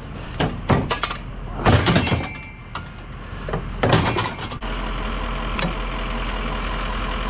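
A few sharp knocks and clunks, like a vehicle door and gear being handled, then about halfway through a steady vehicle engine and road noise sets in.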